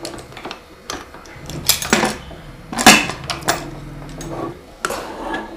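Aluminium pressure cooker lid being closed and its handles pressed together to lock it: a series of sharp metal clanks and knocks, the loudest about three seconds in.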